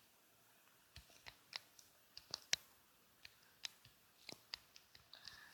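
Faint, irregular clicks and taps, about a dozen, as of fingers tapping a phone's touchscreen while typing a chat message.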